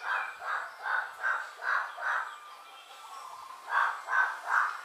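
A series of short animal calls repeated about twice a second, in one run through the first couple of seconds and three more calls near the end after a pause.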